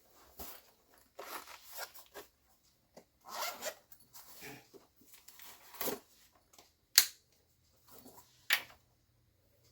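Ratcheting hand screwdriver backing screws out of a freezer's plastic back panel: short bursts of rapid ratchet clicking, then two sharp clicks near the end.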